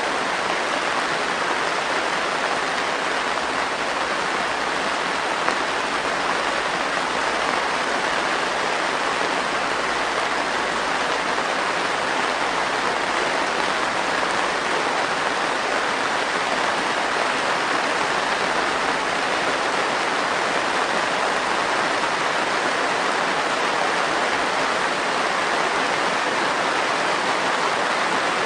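Heavy rain drumming steadily on a greenhouse roof, heard from inside as a dense, even patter.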